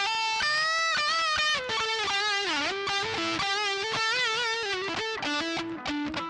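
Epiphone Les Paul 100 electric guitar playing a single-note lead line. Held notes have wide vibrato, there is a bend down and back up about two and a half seconds in, and a quicker run of short notes comes near the end.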